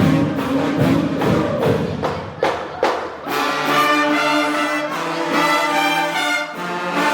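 Music for a dance routine: a drum-driven beat for about the first three seconds, then the drums drop out and long held chords take over.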